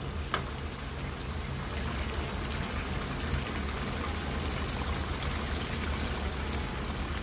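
Chicken and potato curry sizzling in a non-stick wok, then a stream of water poured into it in the last couple of seconds to make the gravy.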